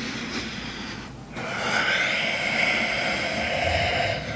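A man breathing hard, catching his breath after strenuous exercise: one breath, a short pause a little after a second in, then a long breath of about three seconds.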